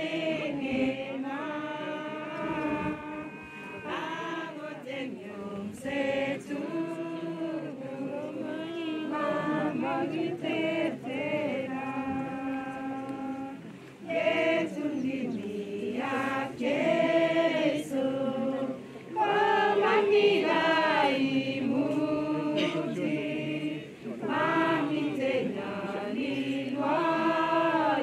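A group of mourners singing together without instruments, with many voices in long held phrases and brief breaks between lines.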